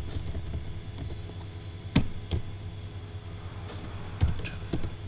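Computer keyboard typing: scattered key clicks, with a few sharper, louder keystrokes around two seconds in and again around four to five seconds in, over a steady low hum.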